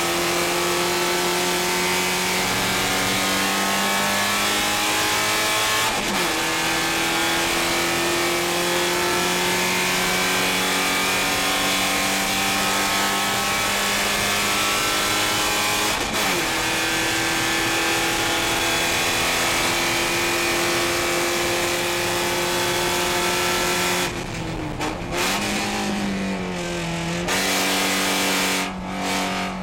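Porsche 944 Spec race car's four-cylinder engine heard from inside the cockpit at full throttle, its pitch climbing through the gears with sharp upshifts about 6 and 16 seconds in. Near the end it lifts off for a corner, the revs dropping and briefly flaring as it downshifts, then it pulls again under road and wind noise.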